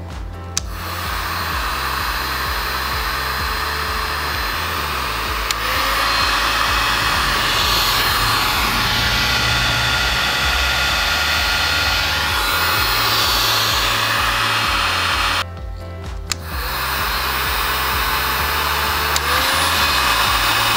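Hamilton HPC002 electric heat gun running, its fan blowing with a steady rush. It switches on about half a second in and steps up to a louder, higher setting a few seconds later. About three-quarters of the way through it cuts off for under a second, then comes back on and steps up again.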